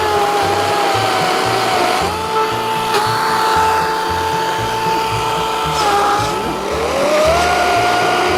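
EGO CS1804 18-inch 56 V cordless electric chainsaw running with a steady high whine. The pitch sags briefly twice as the chain bogs in the wood, then climbs again near the end.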